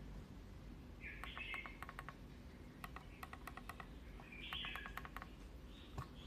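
Three short runs of quick light clicks, fitting the Logitech MX Anywhere 3S's scroll wheel being rolled by a finger. A small bird chirps a few times in the background.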